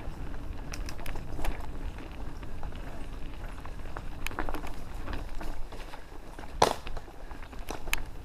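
Tandem mountain bike riding over rough dirt singletrack: a steady low rumble of tyres on the trail with scattered rattling clicks, and one sharp knock about six and a half seconds in.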